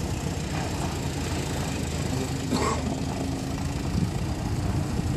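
Ferret Mk 2 scout car's Rolls-Royce B60 six-cylinder petrol engine running steadily as the car drives slowly.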